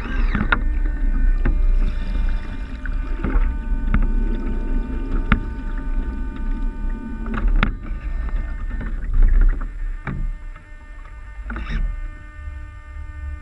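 Water splashing and slapping against the hulls of a sailing Mini40 model trimaran, heard from a camera mounted on the boat, over a steady low rumble, with irregular knocks as waves hit. A faint steady whine runs underneath.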